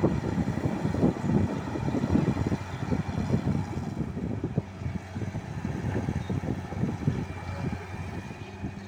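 Diesel engine of a Hitachi wheeled excavator running under load as it digs sand and swings its boom, with wind rumbling on the microphone.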